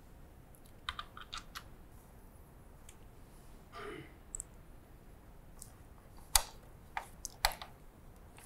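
Scattered small clicks and taps of metal screws and a screwdriver as a monitor stand's upright is screwed onto the back of the monitor, with a brief rustle of plastic wrap about four seconds in and a sharper knock a little after six seconds.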